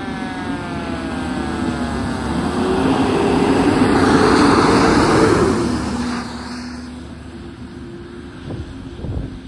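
Fire engine passing close on a wet road: siren tones falling in pitch fade out over the first couple of seconds, then the engine and tyre hiss on the wet pavement swell to loudest about four to five seconds in and fade as it pulls away, leaving a steady low drone.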